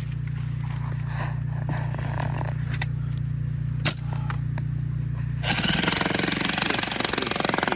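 A steady low machine hum with faint handling sounds for about five seconds. Then a jackhammer starts up loudly, rapidly hammering into the rock of the geode bed, and runs on through the end.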